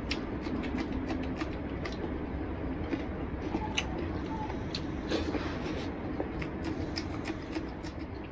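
Close-up eating sounds: rice and curry mixed and eaten by hand, with chewing, mouth noises and scattered crisp clicks over a steady low background hum.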